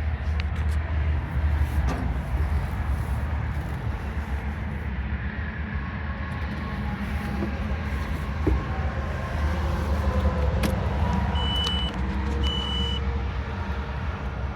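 2009 John Deere 410J loader backhoe's four-cylinder diesel engine running with a steady low rumble. Two short high beeps sound about a second apart near the end.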